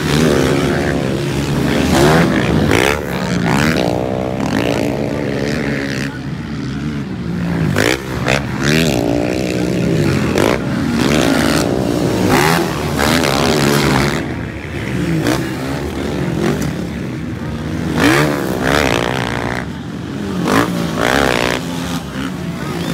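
Motocross dirt bike engines racing past, revving up and dropping again and again as the riders accelerate and change gear, with several bikes overlapping.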